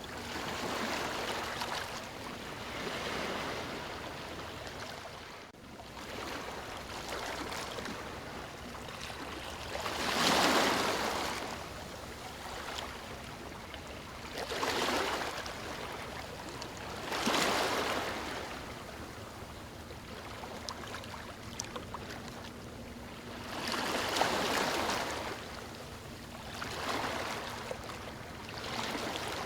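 Moving water washing and splashing, a steady rush that swells into louder surges every few seconds.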